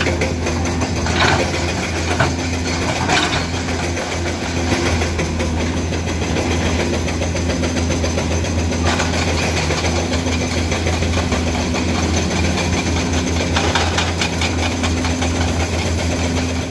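Komatsu PC200 hydraulic excavator's diesel engine running steadily, with a few short knocks in the first few seconds.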